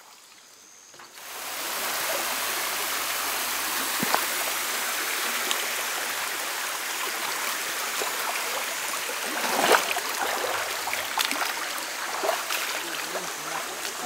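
Shallow rocky mountain stream running and burbling steadily, setting in about a second in. A few splashes and knocks from sandaled feet stepping through the water and over the stones, the loudest near the end.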